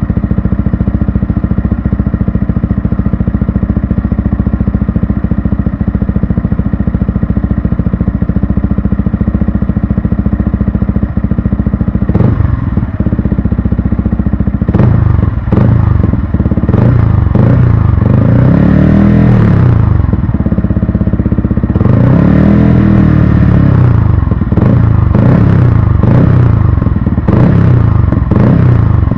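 Yamaha R15 v3's 155 cc single-cylinder engine through a gutted ('kalkal') exhaust, idling steadily, then revved from about twelve seconds in with a string of short throttle blips and two longer revs that climb and drop back to idle.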